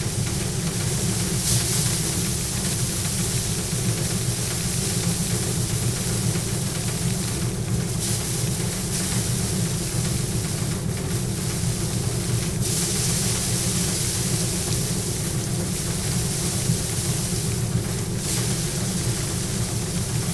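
Pedal-style drum paddy thresher running steadily while bundles of rice plants are held against its spinning drum to strip the grain. A constant machine hum carries a rushing hiss that swells at times.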